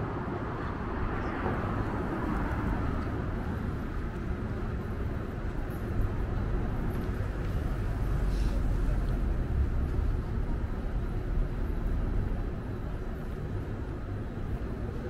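Downtown street traffic: motor vehicles passing, with a deep engine rumble that swells in the middle and fades again.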